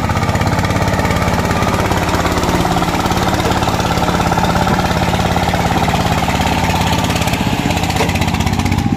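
Single-cylinder horizontal diesel engine of a công nông farm truck running with a rapid, even beat as it pulls a load of logs, its exhaust giving off black smoke under the load.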